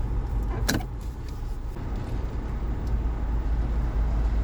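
Steady low rumble of a running car, heard from inside the cabin, with one sharp click just under a second in.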